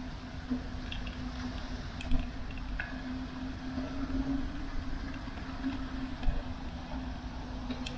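Bicycle rolling along a wet asphalt path: steady tyre and road noise with a low rumble and a steady hum, broken by a few light clicks and rattles.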